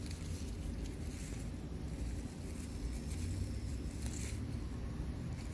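Leaves rustling and crackling as young leafy greens are picked by hand, with a couple of short crackles over a steady low rumble.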